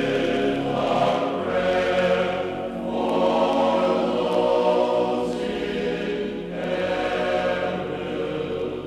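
Choral music: a choir singing long held chords that swell and fade in phrases a few seconds long.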